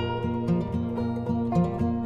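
Background instrumental music: a plucked string instrument playing a steady run of notes.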